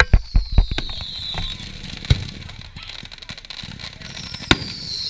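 Fireworks display: a quick run of sharp crackling pops, then single booms about two seconds and four and a half seconds in. A high whistle glides slowly down in pitch near the start and again near the end.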